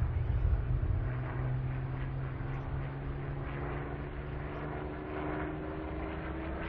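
Hawker Hurricane's Rolls-Royce Merlin V12 engine droning as the fighter flies past. The sound is louder at first and eases about a second in, then holds steady while its pitch slowly rises.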